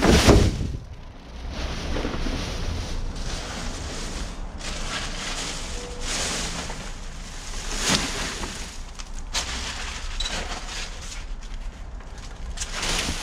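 Plastic trash bags rustling and crinkling as they are pulled and shifted around in a metal dumpster, with a bag thumping down right at the start.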